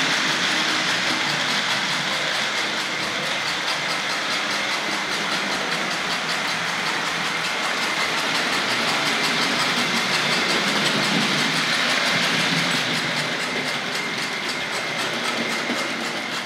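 Tri-ang Hornby 00-gauge model steam locomotive running steadily on track, its tender's chuff-chuff sound box giving a fast, even hissing chuff as the scraper rubs on the rear axle, over a steady whine from the electric motor and the clicking of wheels on the rail joints.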